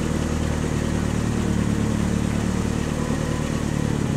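Motor-engine sound effect for a toy truck driving along a racing track: a steady low engine hum with a slight shift in pitch.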